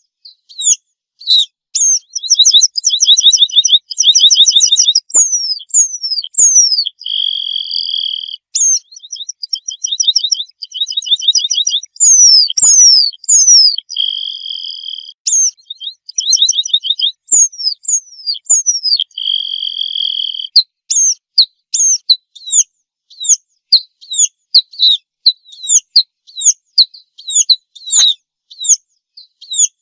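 Red-throated pipit singing: a long, high-pitched song of thin down-slurred notes and fast trills, with three drawn-out held notes along the way.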